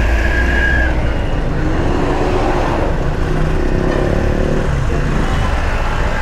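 Street traffic noise: a loud, steady low rumble of road vehicles, with a brief high steady tone lasting about a second at the start.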